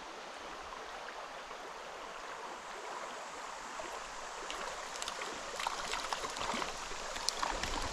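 Shallow stream running over rocks, a steady rush of water. From about five seconds in, short sharp splashes as a hooked trout thrashes at the surface.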